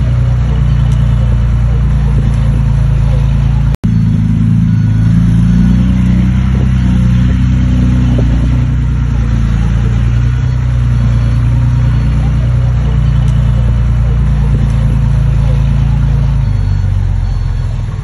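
Diesel engines of dump trucks and a small Komatsu bulldozer running at work, their pitch rising and falling as the machines move and the truck beds tip. The sound cuts out for an instant about four seconds in and gets quieter near the end.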